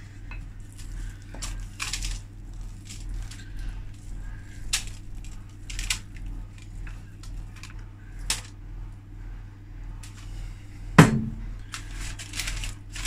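Wooden spoon scraping and knocking thick cake batter out of a bowl into a paper-lined cake tin: a run of short scrapes and taps, with one sharp, louder knock about eleven seconds in. A steady low hum runs underneath.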